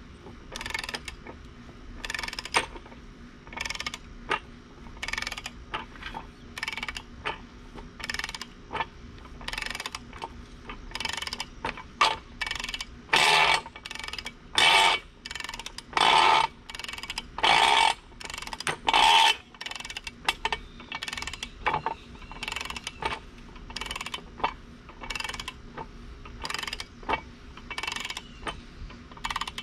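Ratchet wrench clicking in repeated strokes as the new blade bolts on the stump jumper are torqued down toward 600 pounds. The strokes are loudest in the middle stretch.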